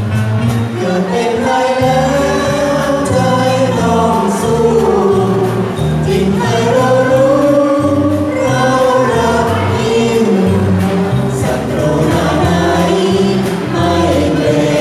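A mixed group of men and women singing a Thai song together into microphones, with instrumental backing and a steady bass line.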